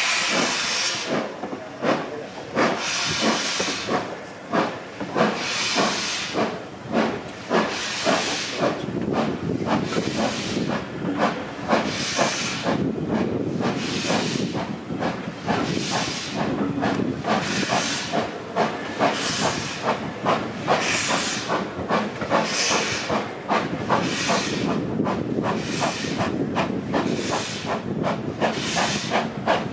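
Ivatt Class 2MT 2-6-0 steam locomotive No. 46447 pulling away, its exhaust beating in loud hissing chuffs. The chuffs start a couple of seconds apart and come steadily closer together as it gathers speed, over a fine metallic clatter.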